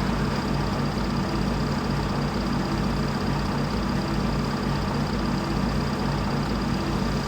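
An engine idling with a steady low throb. It cuts off suddenly near the end.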